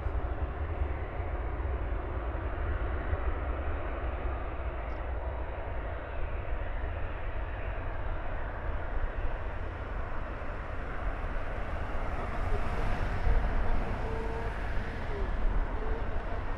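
Four CFM56 turbofan engines of a Boeing E-3D Sentry running at low power as it rolls on the ground, heard from afar as a steady rushing rumble that swells slightly about three quarters of the way through.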